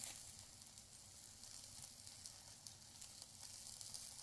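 Faint, steady sizzling hiss with fine crackling.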